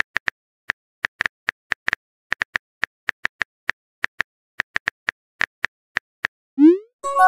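Phone keyboard key-click sound effects, short sharp taps at an uneven pace of several a second as a message is typed. Near the end comes a rising swoosh, then a loud chime of a few steady tones: the message-sent sound.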